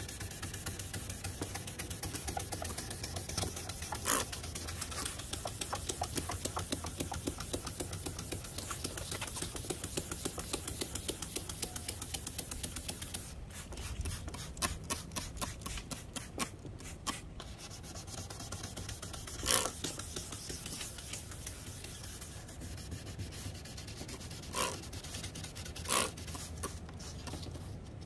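Sandpaper rubbing on a plastic headlight lens in rapid back-and-forth strokes. The strokes loosen and space out around the middle, with a few sharp knocks scattered through.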